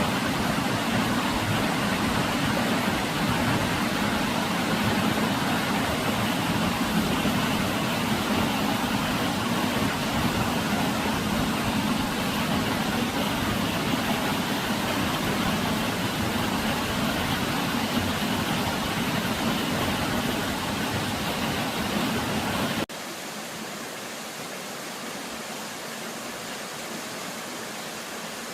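Minoo waterfall rushing as a steady roar of falling water. About 23 seconds in it drops suddenly to a quieter level.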